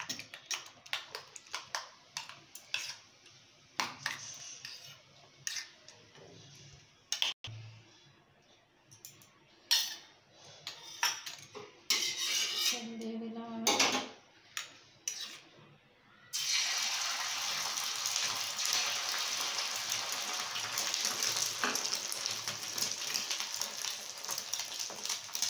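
A metal spoon clinking fast and unevenly against a small steel bowl as beaten egg with onion and chilli is mixed, then a metal spatula knocking on a flat griddle (tawa). About two-thirds of the way through a steady sizzle starts suddenly as the egg mixture goes onto the hot tawa.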